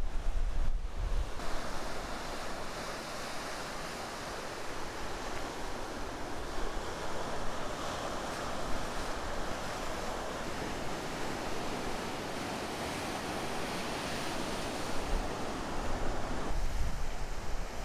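Ocean surf: waves breaking and whitewater rushing in a steady hiss, with wind rumbling on the microphone at the start and again near the end.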